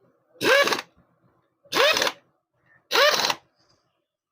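Power driver tightening the clutch cover bolts on a Royal Enfield Classic 350 engine, run in four short bursts about a second apart, each spinning up and down in pitch.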